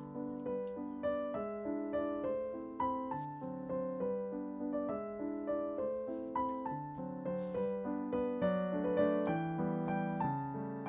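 Background piano music, a steady stream of struck notes that each fade away.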